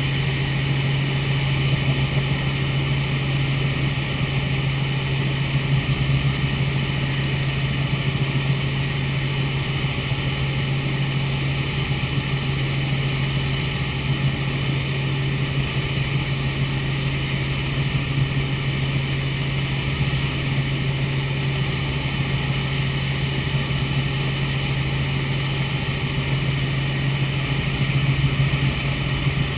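Robinson R44 Raven II helicopter in flight, heard from inside the cabin: the steady drone of its six-cylinder Lycoming piston engine, transmission and rotors, a strong low hum with fainter steady higher tones over an even rushing noise.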